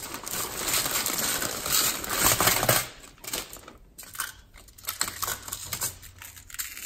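A clear plastic bag crinkling and small plastic bead packets rustling and clicking as they are handled. The crinkling is dense for about the first three seconds, then thins to scattered light clicks and rustles.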